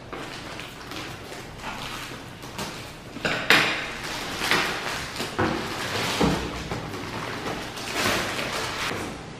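Scissors cutting into a plastic courier mailer bag, then a sharp rip about three and a half seconds in and crinkling plastic as the bag is torn open by hand and a cardboard box is pulled out.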